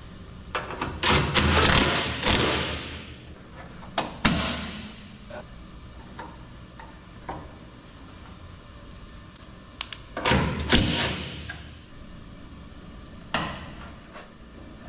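Metal clattering, scraping and knocking as a steel fuel line is bent and worked into place against a car's underbody: two busy bursts about nine seconds apart, with a few single sharp knocks between.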